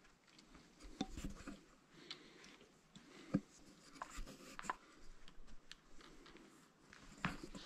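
Footsteps scuffing and crunching on loose rock in a mine tunnel: irregular scrapes and a few sharper clicks, the loudest about three and a half seconds in.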